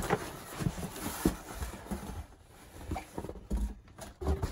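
Cardboard being handled: a corrugated shipping box's flaps and packing cardboard scraped and knocked about, with scattered light thumps as a shoebox is lifted out.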